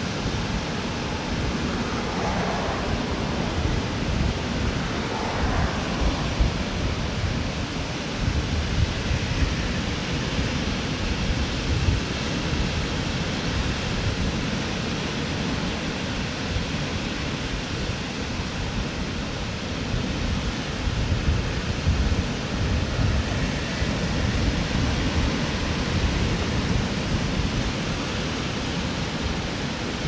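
Small waves breaking and washing up a sandy beach: a steady rush of surf, with irregular low wind rumble on the microphone.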